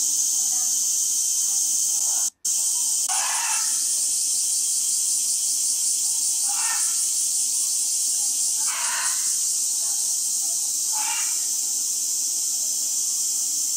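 Steady high-pitched outdoor hiss, like a drone of insects, with a few short faint sounds every two to three seconds. The sound cuts out for an instant about two seconds in.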